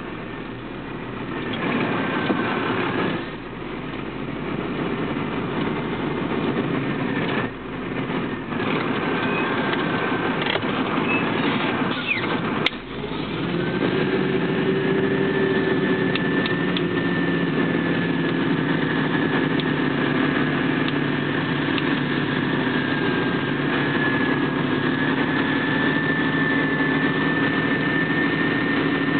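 Vehicle engine running and road noise while driving slowly, heard from inside the cab. A sharp click comes about twelve seconds in, and soon after a steady high whine joins the engine sound and holds.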